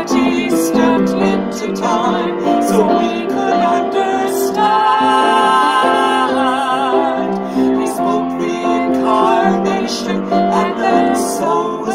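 A woman and a man singing a Christmas carol together to piano accompaniment, with a long held note with vibrato in the middle.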